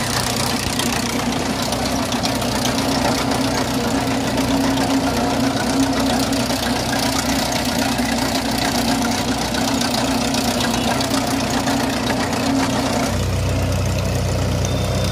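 John Deere 5055E three-cylinder turbo diesel tractor running steadily under load while its chain trencher's toothed digging chain clatters through dry soil. About two seconds before the end the sound changes suddenly to a deeper, steadier engine note heard closer to the tractor.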